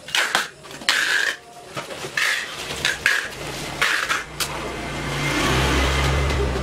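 Plastic sheeting and stretch film crackling and scraping in short bursts as a long wrapped package is handled on a tiled floor. From about halfway a low engine drone swells in, a motor vehicle passing, and is loudest near the end.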